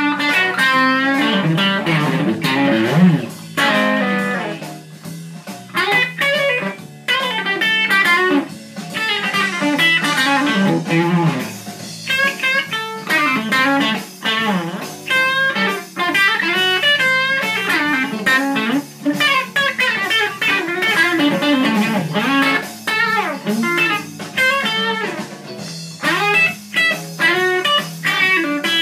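Menapia Telecaster-style electric guitar played through an overdrive pedal: picked single-note lead phrases with bent notes, in short bursts separated by brief pauses.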